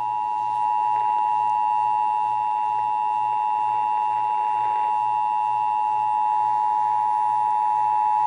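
Emergency Alert System dual-tone attention signal: two steady tones close together near 1 kHz, sounding as one loud, unbroken tone that starts abruptly. It warns that an emergency alert message follows. A faint pulsing hum sits underneath.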